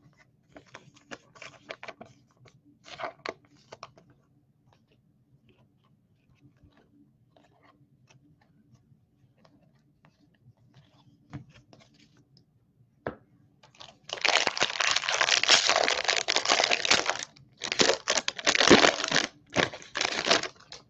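A trading-card pack's foil wrapper being torn open and crinkled, a loud crackling run of rips in several bursts starting about two-thirds of the way in. Before that, soft clicks of cards being flipped and handled.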